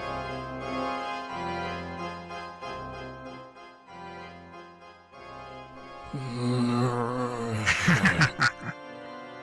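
Organ music playing held chords over a bass line that changes every second or so. About six seconds in, a swirling layer joins it, and a run of sharp clicks follows near the end.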